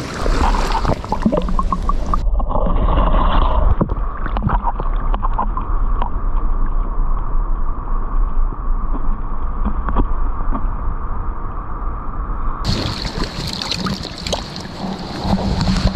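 Lake water sloshing and gurgling around a microphone that goes under the surface about two seconds in and comes back out near the end. While it is submerged the sound is muffled, with the high end gone and a heavy low rumble with scattered knocks; before and after, the splashing is heard in open air.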